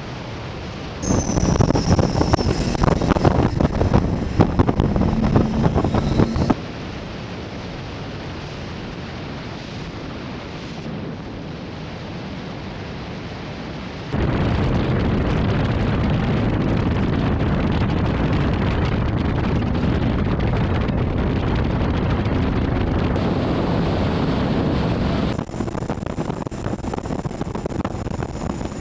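Skater performance catamaran running at speed, heard from onboard: wind buffeting the microphone over engine and water noise. It comes in several segments whose loudness jumps or drops suddenly, about a second in, around six seconds, around fourteen seconds and near the end.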